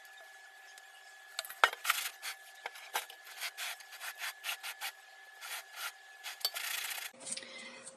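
Quick, irregular scraping and rubbing of kitchenware as cake batter is scraped from a mixing bowl into a tall aluminium cake pan and the pan is worked level, starting about a second and a half in with a sharp knock.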